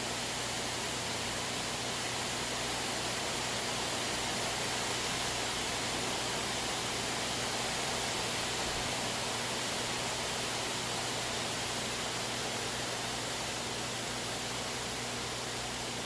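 Steady, even hiss with a faint low hum underneath; no separate splashes stand out.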